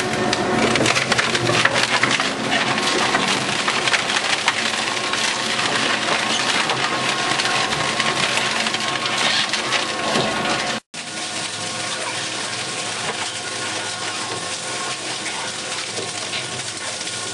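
Four-shaft shredder's cutter shafts tearing through wooden pallets: a dense, continuous crackle of wood cracking and splintering. After a brief break about 11 seconds in, the noise goes on steadier, with fewer sharp cracks and a faint hum.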